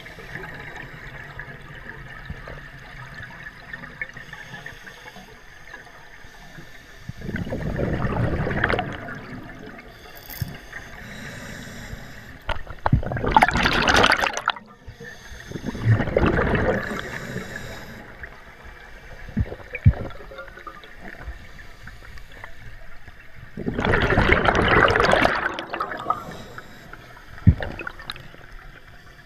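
Heard underwater: scuba divers' exhaled air bubbling out of their regulators in four loud rushing bursts of a second or two each, over a steady low hiss, with a couple of short sharp knocks.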